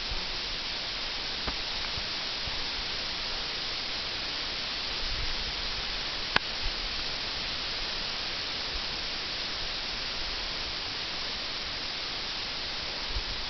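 Steady hiss of a wet slide of spring slush and snow pouring down a steep chute, with a sharp click about six seconds in.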